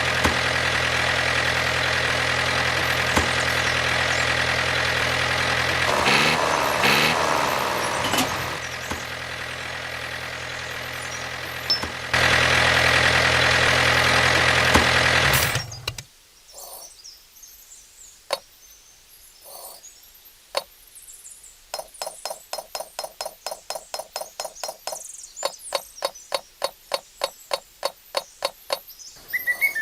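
A motor running steadily with a low, even hum, louder for the last few seconds before it cuts off suddenly about sixteen seconds in. A run of rapid clicking, about four a second, follows.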